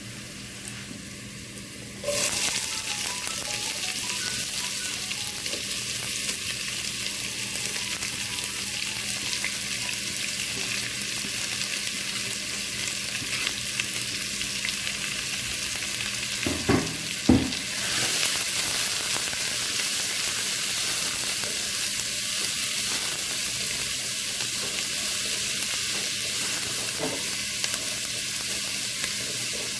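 Chopped onions frying in hot oil in a pan with whole spices and curry leaves. The sizzle jumps up suddenly about two seconds in, as the onions go in, then runs steadily while they are stirred. Two short knocks come a little past halfway.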